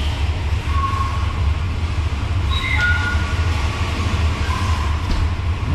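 522-cubic-inch big-block Chevrolet V8 running steadily on an engine dyno, a deep, even rumble, with a few short high squeaks over it.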